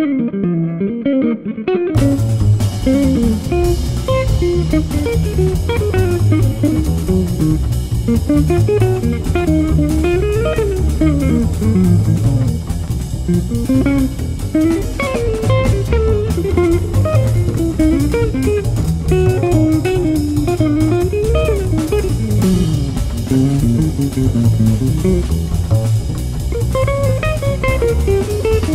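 Instrumental jazz track: a guitar plays a winding single-note melody over bass and drums, with the cymbals coming in about two seconds in.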